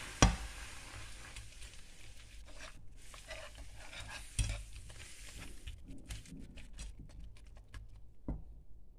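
Wire whisk stirring a thick flour-and-milk tuna mixture in a nonstick frying pan, over a soft sizzle that fades in the first couple of seconds. The whisk knocks against the pan three times and clicks quickly against it near the end.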